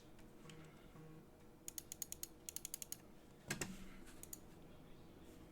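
Typing on a custom mechanical keyboard with lubed C3 Banana Split linear switches in an aluminum case on an FR4 plate, with PBT keycaps: after a short pause, a quick run of about a dozen keystrokes, then one heavier keystroke and a couple more taps.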